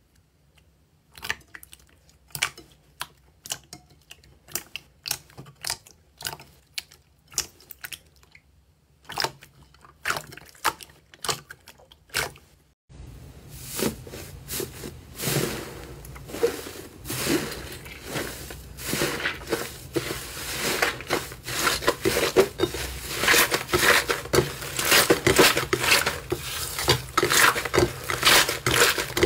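Slime squeezed and pressed by hand: sharp, separate pops and squelches, one or two a second. About halfway through, this gives way to dense, continuous crackling and squishing as slime is kneaded, which grows louder toward the end.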